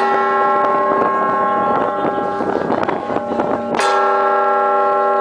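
Bells of the Bruges Belfort carillon, struck by the automatic play mechanism: a heavy bell stroke at the start and another about four seconds later, each ringing on with a long, layered hum.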